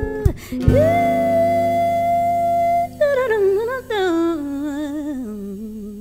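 Female vocalist singing the closing phrase of a song after the music breaks off briefly near the start: a long held high note, then a descending run with vibrato that settles on a lower held note.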